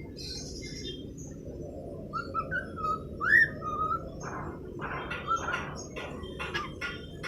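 Young cockatiel whistling and chirping: a few short gliding whistles, the loudest a rising one about three seconds in, then a run of quick chirps, over a steady low background hum.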